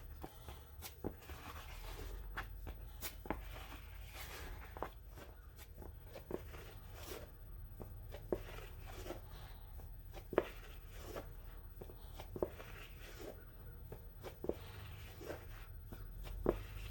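Faint, irregular clicking and scraping of a plastic spreader working putty on a mixing board, about once or twice a second, as body finishing putty and hardener are mixed. A low steady hum runs underneath.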